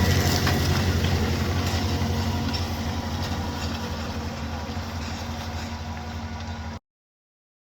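John Deere 7280R tractor's six-cylinder diesel engine running steadily, growing gradually fainter, then cutting off suddenly near the end.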